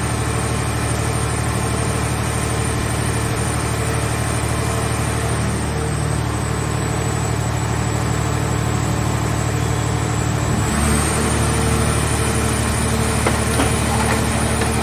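Car shell scrap baler's engine-driven power unit running steadily. About two-thirds of the way through, its pitch and load step up, with a few sharp clicks near the end.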